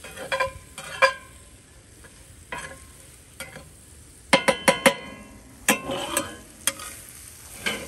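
Metal spatula scraping and clanking against a cast iron skillet while stirring peppers and onions frying in it over a charcoal grill, with a low sizzle underneath. A quick run of about five sharp ringing clanks comes a little past the middle, and a few more follow near the end.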